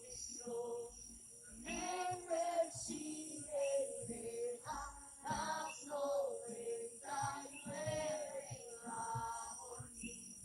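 Voices singing a slow worship song, phrase after phrase, with music.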